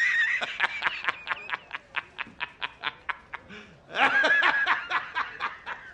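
High-pitched laughter, a rapid run of about five laughs a second. It breaks into a second loud, squealing bout about four seconds in.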